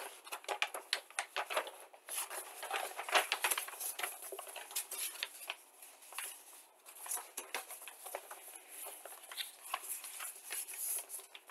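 Paper and plastic being handled at close range: a rapid, irregular run of small rustles, crinkles and light clicks, as of a model kit's instruction sheet and bagged parts being turned over and put aside.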